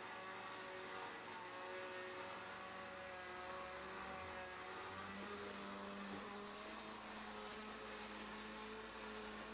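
Steady mechanical hum from the recovery truck as the car sits loaded on its bed, made of several held tones; about halfway through a new lower tone joins and holds.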